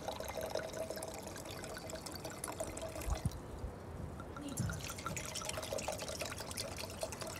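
Red wine pouring from a glass bottle into a wine glass, a steady glugging trickle. It pauses for about a second a little after three seconds in, then pours again.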